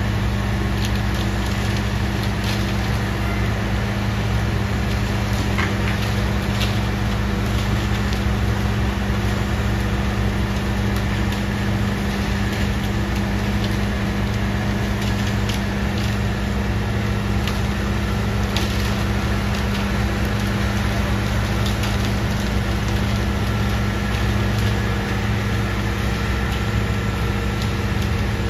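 Concrete mixer truck's diesel engine running steadily with an even, unchanging hum, with scattered faint clicks over it.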